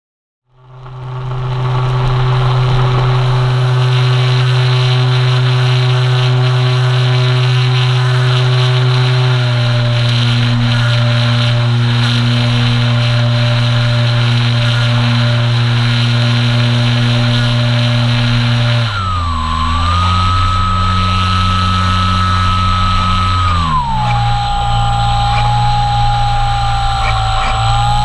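RC trainer plane's motor and propeller running, heard from a camera on the airframe: a steady drone that starts half a second in, steps down in pitch about ten seconds in, and shifts pitch twice more in the last ten seconds as the throttle changes, with wind noise behind it.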